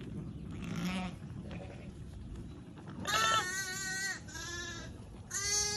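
Shetland sheep bleating: a faint call about a second in, then three loud, high bleats, two back to back about three seconds in and one near the end.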